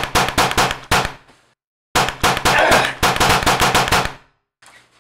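Gunfire sound effects in a film shootout: rapid shots, several a second, that cut off abruptly about a second and a half in. A second, denser volley then runs for about two and a half seconds and stops.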